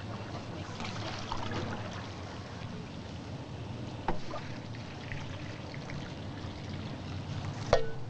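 Water trickling steadily, with a sharp click about four seconds in and a louder short sharp sound near the end.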